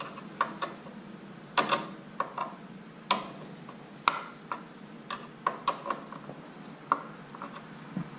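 Tools and parts being handled on an electric bicycle: about fifteen sharp clicks and knocks at irregular intervals.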